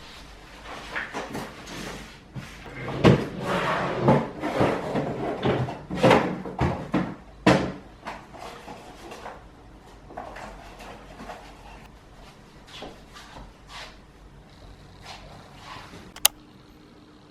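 Household handling noises: a run of knocks and clatter, like drawers or cupboard doors and objects being moved, loudest in the first half, then fainter knocks and a sharp click near the end.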